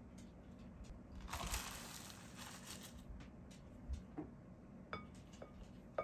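Rolled oats poured into a glass mixing bowl, a faint dry rushing that lasts about two seconds. After it come several light clinks of a cup against the glass bowl, a few of them ringing briefly.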